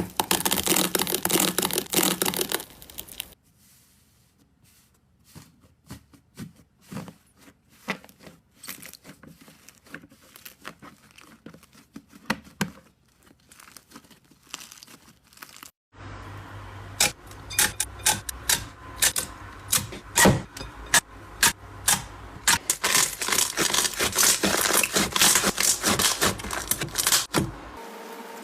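Slime being squeezed and stretched by hand: a dense crinkling crackle for about three seconds, then scattered small pops and clicks, then dense crackling and popping again from about the middle on.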